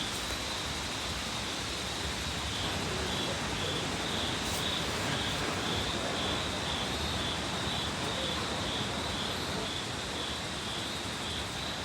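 Evening insects chirping in an even pulsing trill, about two pulses a second, over a steady hiss of outdoor background noise.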